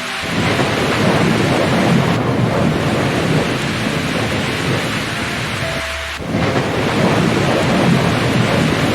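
Heavy rain falling steadily with low thunder rumbling. The sound dips briefly and cuts back in sharply about six seconds in, like a spliced storm recording.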